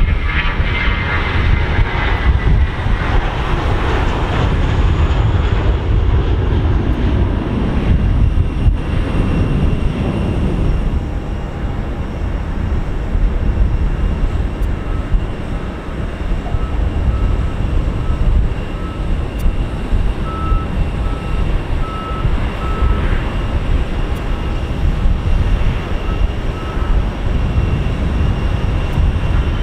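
Jet airliner engines on the runway. An Airbus A321's engines give a whine that falls in pitch as the jet rolls past, then a Boeing 737's engines run with a steady noise.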